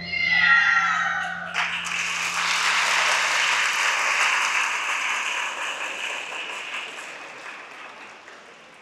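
Audience applause breaks out about a second and a half in, just as the music ends on a falling run of notes, then slowly fades away.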